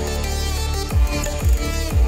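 Electronic dance track with a sustained deep bass line, and three deep kick drum hits about half a second apart in the second half, played through a pair of Kali Audio IN-8 three-way studio monitors and recorded off the speakers by microphones.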